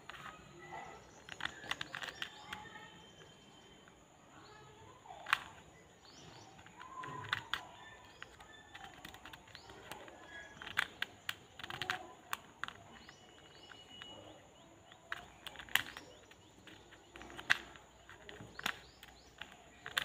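Small plastic 3×3 mini Rubik's cube being twisted by hand: irregular plastic clicks and scrapes as the layers are turned, the loudest about five seconds in. The cube is stiff and turns only with effort.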